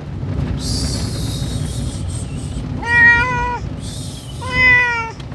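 A cat shut in a pet carrier meowing twice, two drawn-out unhappy meows about a second and a half apart, over a steady low rumble.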